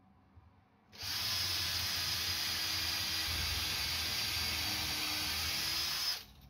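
Cordless drill running at a steady speed for about five seconds, boring an angled pilot hole into a timber stud. It starts about a second in and stops suddenly near the end.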